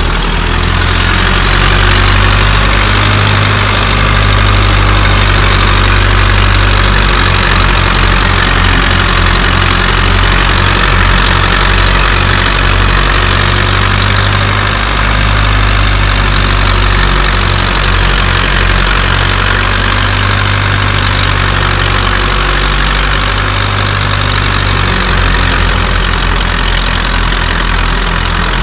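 Belarus 510 tractor's diesel engine running steadily under load while driving a wheat thresher, its low engine note beating in and out at times, under the thresher's steady rushing noise.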